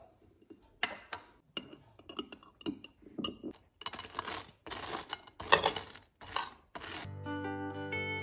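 Table knife scraping and spreading jam across crisp toast in a run of short rasping strokes, with sharper clicks of the knife against the jam jar and plate before them. Guitar music comes in near the end.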